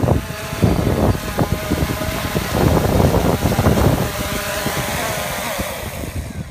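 DJI Phantom quadcopter's four electric motors and propellers buzzing as it hovers low and lands, with rotor wash and wind buffeting the microphone. The motors cut off at the very end.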